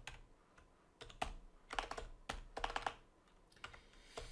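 Keystrokes on a computer keyboard: a few quick clusters of key clicks over the first three seconds, then a pause.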